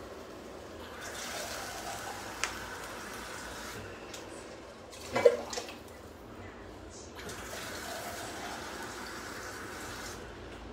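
Liquid poured from a container into a pan of simmering tomato and onion sauce, in two pours, with a click early in the first and a short knock between them.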